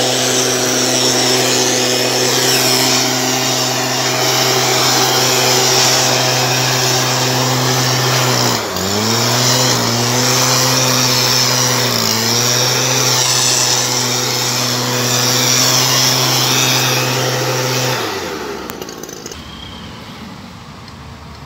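Stihl backpack blower engine running steadily at high throttle, its pitch dipping briefly twice around the middle. It dies away over the last few seconds.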